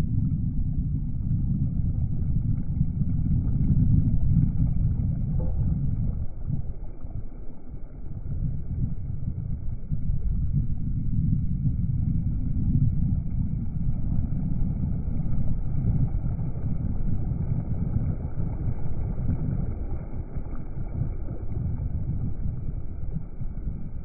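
Continuous low rumbling noise whose loudness swells and dips unevenly, with almost nothing in the upper range.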